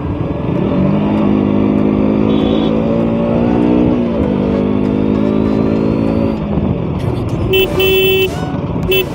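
KTM RC 390's single-cylinder engine pulling under throttle over road and wind noise, its note climbing slightly, with a brief dip about four seconds in, then easing off. A vehicle horn sounds for under a second near the end, then once more briefly.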